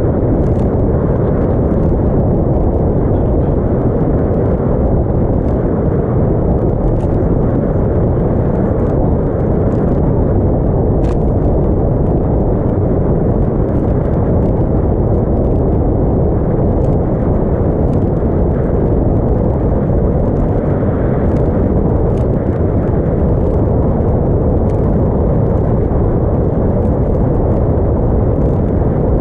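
Steady wind rumble on the microphone of a camera mounted on the bow of a small motorboat running across choppy water, with faint scattered ticks above it.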